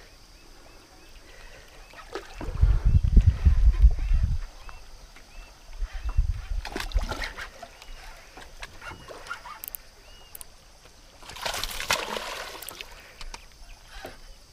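A bird calling in short chirps, repeated about once a second, over gusts of wind buffeting the microphone. Near the end a splash lasts about a second and a half.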